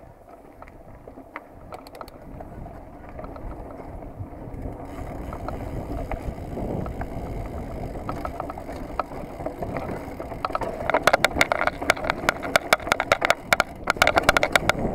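Mountain bike riding fast down a dirt trail, heard from a handlebar-mounted camera: tyre rumble and wind on the microphone getting louder as it speeds up, with a stretch of rapid rattling and clattering from the bike over rough ground in the last few seconds.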